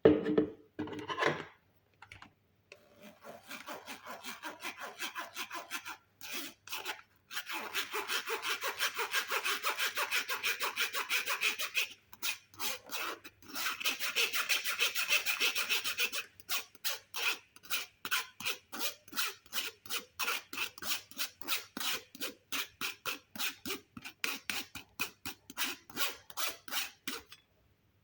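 Rapid rhythmic scraping strokes of a kitchen utensil worked back and forth, about three to four a second. In the middle the strokes run together into a continuous rasp, broken by a few short pauses. A couple of knocks come at the very start.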